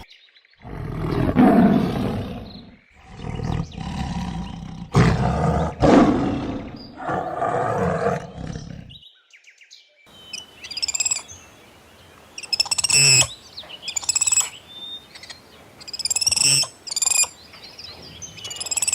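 An animal roaring four times in a row, each roar a second or two long, then after a short pause a bird giving sharp high-pitched chirping calls every second or two.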